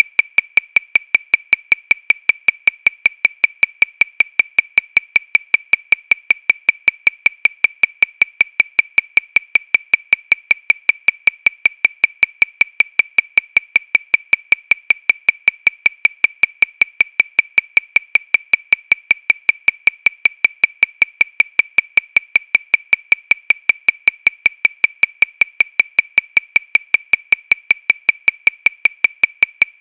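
Electronic metronome clicking steadily at 314 beats per minute, about five sharp, woodblock-like clicks a second, each the same pitch and loudness.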